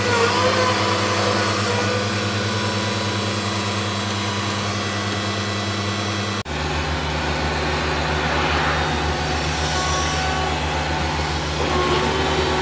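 Diesel engine of a Cat tracked hydraulic excavator running steadily while the machine works its arm. A brief dropout comes about halfway through, and after it the engine note is lower.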